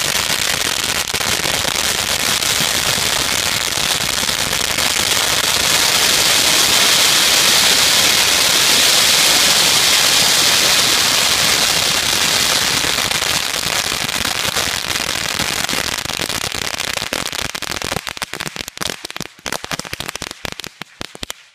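A mound of thousands of firecrackers at the end of a long string going off in a continuous rapid crackle. It is densest and loudest midway, then thins to scattered single bangs near the end as the last ones go off.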